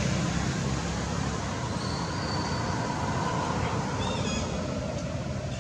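A vehicle passing on the road, a steady rumble that slowly fades as it moves away.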